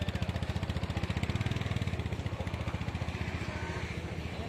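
Diesel engine idling with a fast, even chugging, growing a little louder about a second and a half in.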